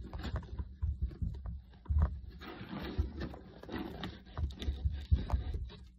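A small utensil scraping and picking at packing tape along the seam of a cardboard box, with irregular scratches, ticks and low knocks of the box being handled.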